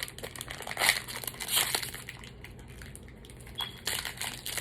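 Lollipop wrapper crinkling and crackling in irregular bursts as the candy is unwrapped, the wrapper sticking to the candy.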